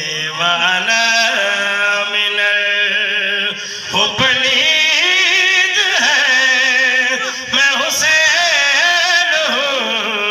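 A man chanting a devotional qasida into a microphone, drawing out long held notes with a wavering, ornamented pitch and no breaks.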